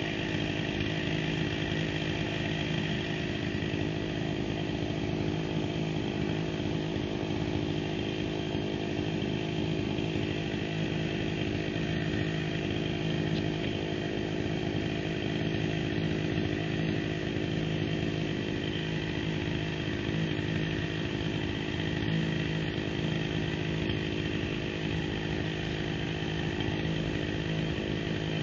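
Two-stroke chainsaw running steadily at an even pitch, with no rise or fall in speed.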